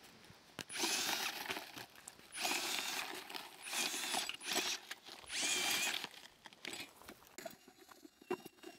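Small motor of a homemade three-wheeler whining in four short bursts of about a second each as it is throttled on, with its small tyres crunching over gravel; quieter crackles of gravel follow near the end.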